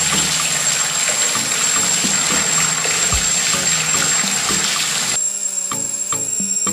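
A thin stream of grape juice pouring and trickling into a small brass pot, a steady splashing hiss that cuts off abruptly about five seconds in.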